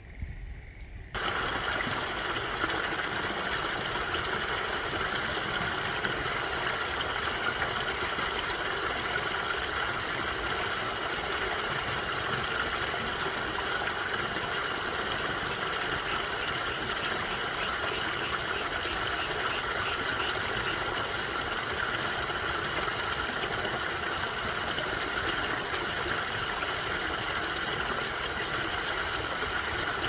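Small, shallow mountain stream trickling and babbling steadily over its bed. The water sound comes in suddenly about a second in, louder than the quieter moment before it.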